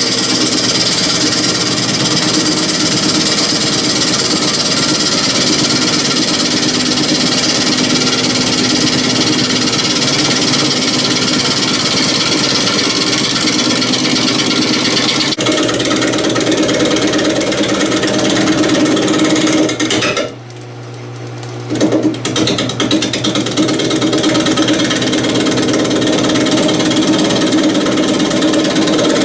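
Power tool working on green cherry wood, running steadily. About twenty seconds in it stops for a moment and then starts again.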